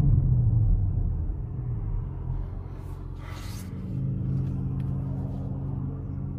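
BMW X5 xDrive45e's turbocharged straight-six running under way. It is loud at first and eases off over the next couple of seconds, with a brief burst of hiss about three seconds in, then settles into a steady, lower-pitched drone.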